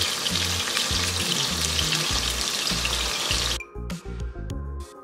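Chicken pieces frying in hot oil in a pot: a dense, steady sizzle full of crackles, which cuts off suddenly about three and a half seconds in. Background music with a steady beat runs underneath and is left alone after the cut.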